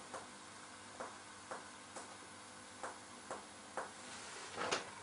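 Finger-on-finger chest percussion: one middle finger striking the middle finger pressed flat on a person's body. About eight short, faint taps come at uneven intervals of roughly half a second to a second.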